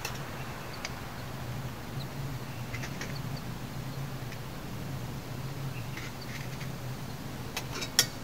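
Steady night-time outdoor background with a low drone, and scattered small clicks and knocks from gear being handled, the loudest a sharp knock near the end.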